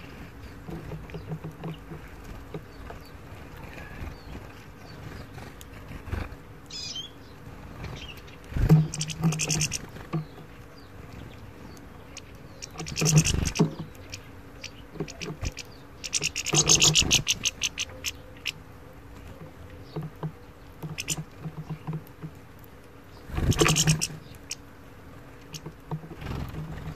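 A European goldfinch rummaging and pecking in a metal pan of sunflower seeds, the seeds and husks rattling and clicking in quick bursts, four louder bursts with scattered single clicks between.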